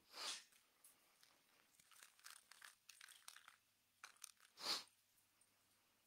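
Near silence with faint rustling and clicking handling noises, and two short hissing rustles, one at the very start and one near five seconds in.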